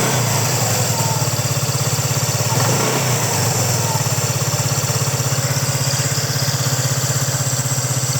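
Kymco RTS135 scooter engine idling steadily with an even rapid pulse, carrying the abnormal noise (異音) that two warranty visits to the service station have not cured; the service station holds that it differs little from other RTS scooters.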